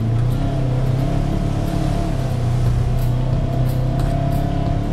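Side-by-side UTV engine running steadily while driving down a dirt trail.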